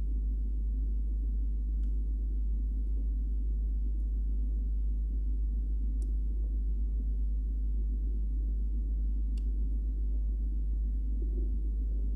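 Steady low whirring hum of a running freezer, heard from inside the freezer compartment, with a few faint ticks.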